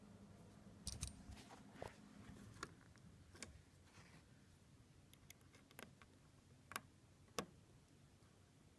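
Faint, irregular small metal clicks and taps of a 1.5 mm Allen wrench working at the tiny set screws in the volume knob of a Pioneer SX-1250 receiver, the two sharpest near the end.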